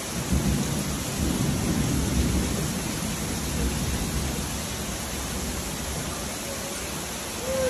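Heavy rain pouring down in a steady hiss, with a low rumble in roughly the first three seconds.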